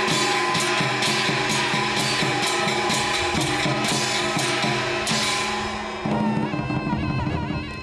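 Lively music with a steady drum and percussion beat over held instrumental notes; the drumming stops about five seconds in and the remaining notes fade away.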